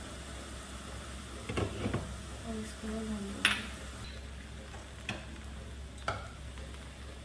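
Liquid poured over hot rice in a pot with a faint sizzle, then sharp clinks as a glass lid is set on the pot, the loudest about halfway through, followed by a couple of lighter knocks.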